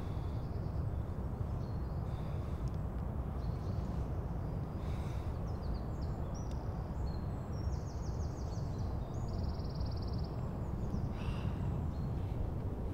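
Steady outdoor background rumble with faint songbirds calling, including two short rapid trills about eight and nine and a half seconds in.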